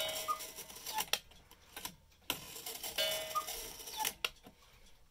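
Small mechanical cuckoo clock sounding its call twice, about three seconds apart, with sharp clicks from its mechanism in between.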